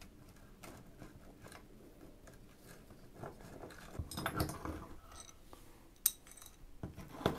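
Metal hand tools (an adjustable wrench and locking pliers) clinking and scraping on a brass hose fitting as an air chuck is tightened onto an air hose. Light scattered clicks, a busier patch of handling about four seconds in and a sharp click about six seconds in.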